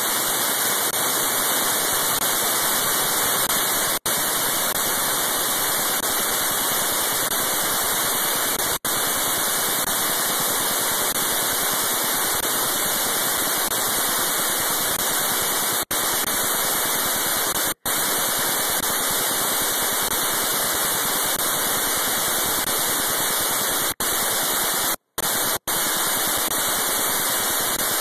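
Loud, steady static hiss that cuts out to silence for a split second about seven times.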